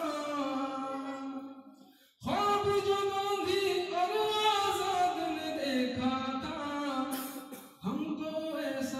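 A man singing an Urdu–Hindi nazm in ghazal style, with long held, wavering notes. The voice fades away about a second and a half in, stops briefly, then comes back strongly, with another short break near the end.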